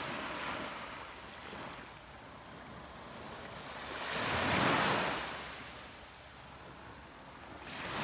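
Ocean surf washing onto the beach: one wave swells up about halfway through and dies away again.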